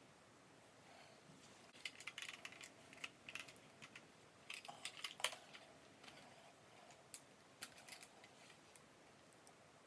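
Light clicks and taps of a make-up palette and brush being handled, coming in a cluster through the first half and sparser towards the end.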